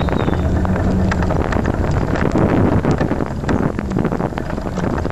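Ride noise picked up by a camera mounted on a moving bike: wind and road rumble with a steady low hum, broken by many quick rattling clicks.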